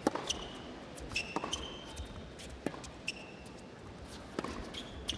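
Tennis rally: a tennis ball struck by racquets and bouncing on the court, in a string of sharp, irregular knocks, with short high squeaks from players' shoes.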